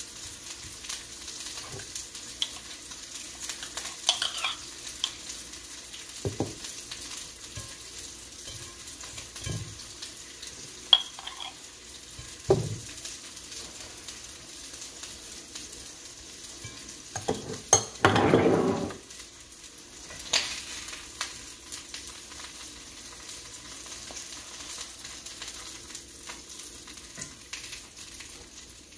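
Burger patties of ground duck breast and venison sizzling steadily in a skillet. A few sharp knocks are heard, along with a louder sound about a second long around eighteen seconds in.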